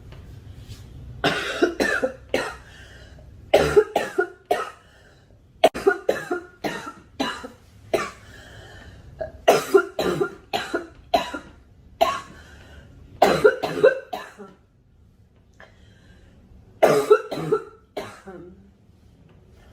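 A girl coughing repeatedly in short fits of two to four sharp coughs each, with pauses of a second or two between fits.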